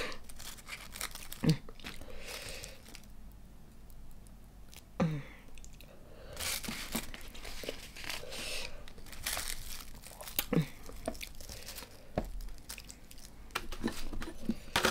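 Dried roasted seaweed (nori) sheet crinkling and rustling as it is handled and folded around prawn meat, with a few short knocks.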